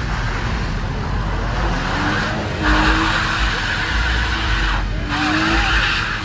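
A car's tyres spinning and sliding on wet asphalt as it drifts in circles: a hissing rush of spray that swells in three surges, the loudest in the middle, over a steady high engine note.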